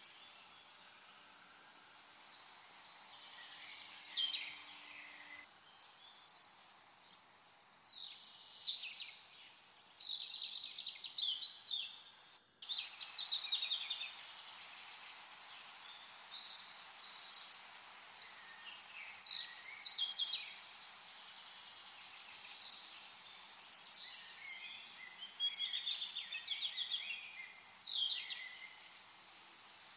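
Birds singing over a steady hiss: phrases of quick, high, falling chirps every few seconds, with a momentary dropout about twelve seconds in.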